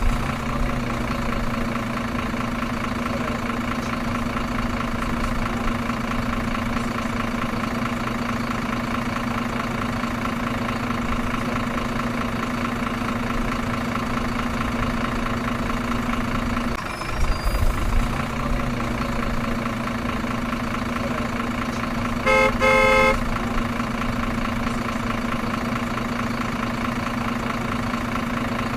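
Truck engine idling steadily, briefly interrupted once by a thump, with one short horn honk later on.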